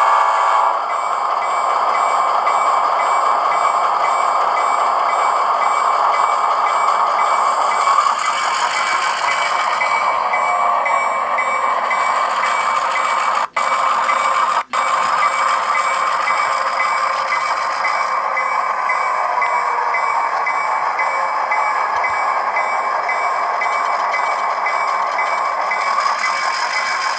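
Model-train sound decoder playing a diesel switcher's engine through a tiny sugar cube speaker in an HO-scale SW1500, with a rapidly repeating high ding running along with it. The sound cuts out completely twice, briefly, about a second apart near the middle.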